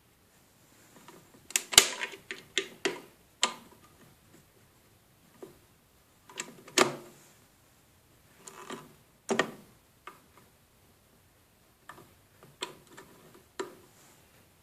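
Sharp plastic clicks and knocks of small USB wall chargers being pulled from and pushed into the sockets of a power strip, with a charging cable plugged in, in about four short clusters of clicks.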